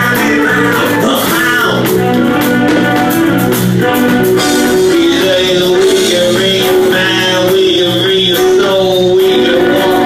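Live band music with electric guitar and a voice singing, loud and steady, with a long held note from about halfway through.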